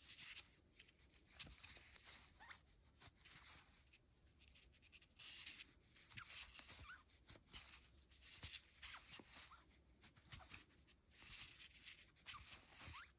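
Faint, repeated squeaks and rubbing of cotton yarn drawn against a metal crochet hook as stitches are worked.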